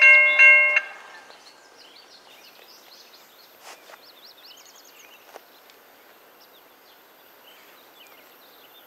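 Railroad grade-crossing warning bell ringing, about two strikes a second, stopping about a second in. After that come faint, scattered bird chirps.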